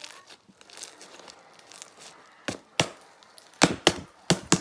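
Homemade slime being squeezed and stretched by hand, giving faint squelching at first, then a run of about six sharp pops and snaps in the second half.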